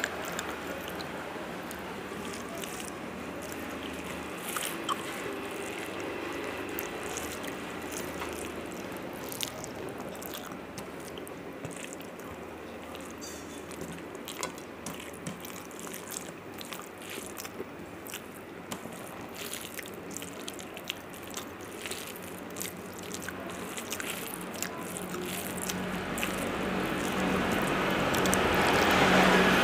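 Close-miked eating by hand: chewing of rice and fish, wet squishing as the fingers mix and gather rice, and small clicks against a steel plate. A broad noise swells up and grows louder near the end.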